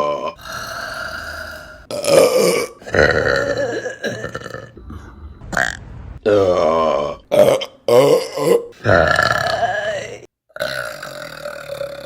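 Women burping, about nine burps one after another. Each is a pitched belch of a different length and pitch, several lasting a second or more, starting and stopping abruptly.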